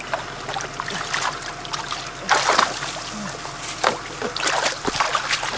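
Water splashing and sloshing in shallow water in irregular bursts, with a louder splash about two and a half seconds in.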